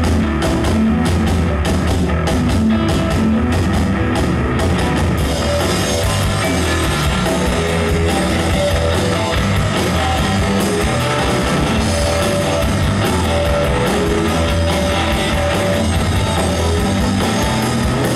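Live rock band playing loud electric guitar over a drum kit. Steady cymbal ticks carry the beat at first, and a thicker wash of cymbals fills in about five seconds in.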